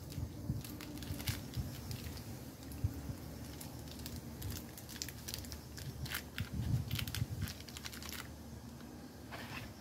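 Crinkling and tearing of a small plastic seasoning packet from a cup-noodle pack, heard as a string of irregular crackles and clicks as it is worked open by hand.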